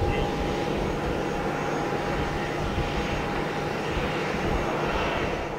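Boeing 737-800's CFM56-7B turbofan engines running at taxi power as the airliner rolls past: a steady jet rumble with a thin whine that fades about two-thirds of the way through.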